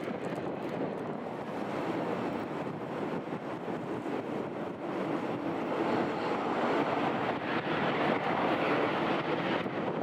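Jet engine roar of a Ryanair Boeing 737-800, a steady broad rushing noise that grows louder in the second half.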